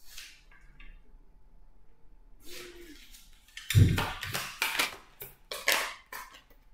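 Tarot cards being shuffled and handled on a table: faint rustles at first, then a soft thump about four seconds in and a quick run of short papery slaps and rustles for a couple of seconds.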